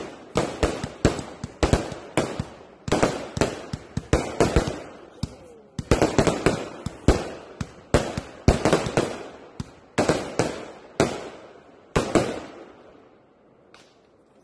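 Fireworks going off in a rapid series of sharp bangs, each with a short crackling, echoing tail. The bangs stop about 12.5 s in and the sound dies away over the last two seconds.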